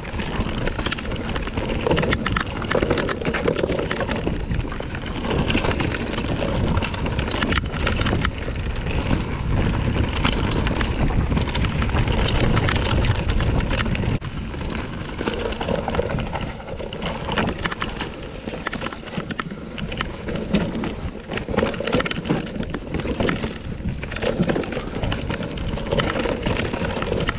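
Mountain bike riding fast down a dirt forest trail: knobby tyres rolling and skipping over dirt, roots and rocks, with the bike rattling and clattering constantly. A low rumble of wind buffets the camera microphone.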